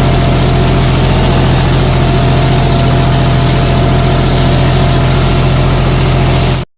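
A loud, steady engine-like mechanical drone with a constant low hum, starting and stopping abruptly.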